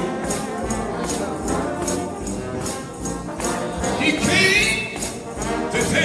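Trombone shout band playing an up-tempo gospel piece: a mass of brass over a steady percussion beat of about three strokes a second.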